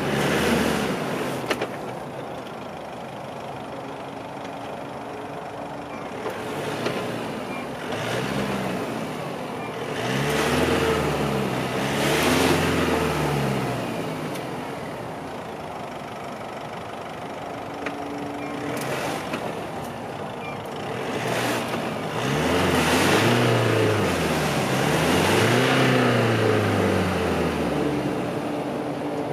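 Nissan Navara pickup stuck in mud, its engine revving in repeated surges that rise and fall in pitch while the tyres spin without grip in the mud and wet grass.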